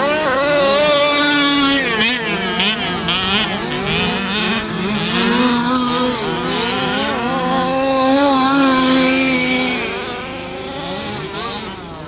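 Several large-scale petrol RC buggies with small two-stroke engines buzzing and revving together as they race, their pitches rising and falling and overlapping; the sound eases off slightly near the end.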